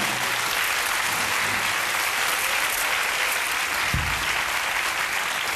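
Studio audience applauding steadily, with a dull thump about four seconds in.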